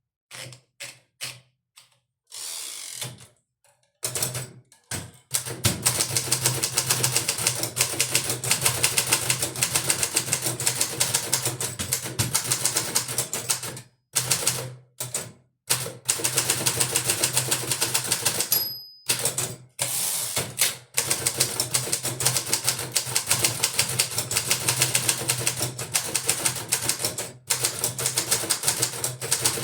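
1959 Hermes 2000 manual portable typewriter being typed on: a few separate keystrokes, then fast continuous key strikes with short pauses between runs. About two-thirds of the way through, a short bell ring comes just before a pause, the margin bell at the end of a line.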